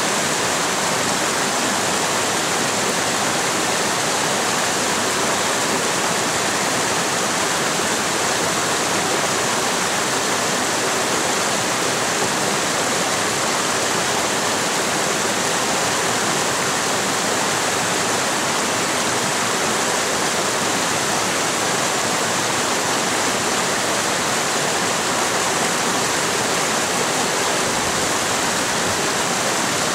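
Mountain creek water rushing over and between boulders, a loud, steady hiss that does not change.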